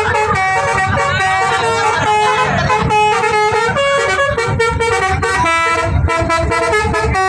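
Bus telolet horn: a multi-tone musical horn playing a quick melody of stepped notes, over the low rumble of the bus.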